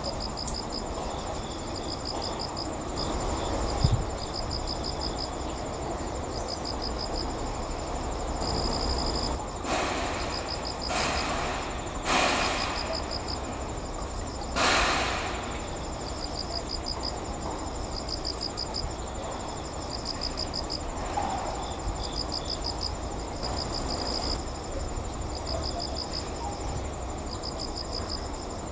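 Insects chirping in short pulsed trains about once a second over a steady high-pitched trill, against a low outdoor rumble, with a few brief rushes of noise in the middle.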